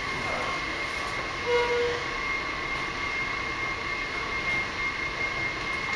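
Steady mechanical hum and rush of a metro station, with a constant high whine and a short low tone about a second and a half in.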